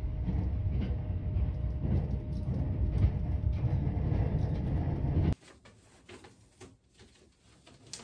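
Train running, heard from inside the passenger car: a steady low rumble that cuts off suddenly about five seconds in, leaving only a few faint clicks.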